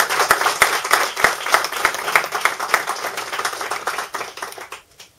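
Audience clapping, the individual claps easy to pick out; the applause thins out and stops about five seconds in.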